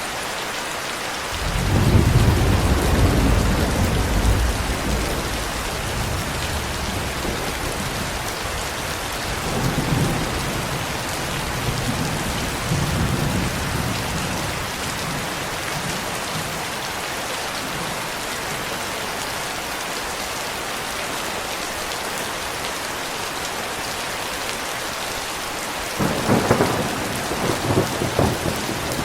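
Steady rain falling throughout, with rolling thunder: a long low rumble starting about two seconds in, fainter rumbles in the middle, and a sharper, louder peal near the end.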